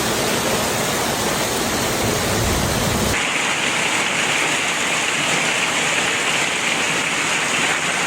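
Steady rushing water of a heavy storm. About three seconds in it cuts abruptly to a brighter, hissier wash with less low rumble.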